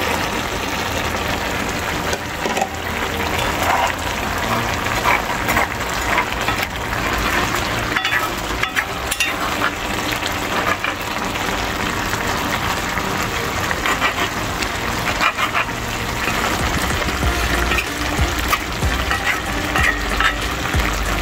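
Pot of curry stew chicken with potato and bodi (long beans) cooking on the stove: a steady sizzle and bubbling, with scattered clicks and knocks.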